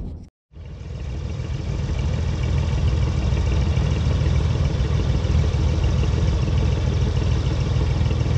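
An engine running steadily, a low, even drone, which resumes after a brief cut to silence just after the start.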